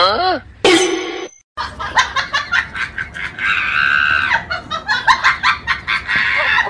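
A cat's short meow, its pitch bending up and down, followed by a person laughing in rapid uneven bursts.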